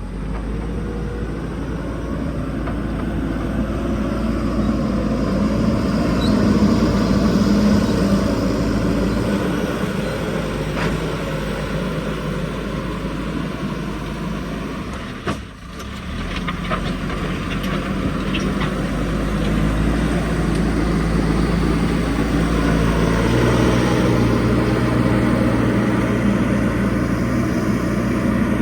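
Backhoe loader's diesel engine running steadily at work, with a brief break in the sound about halfway through and a few light clicks after it.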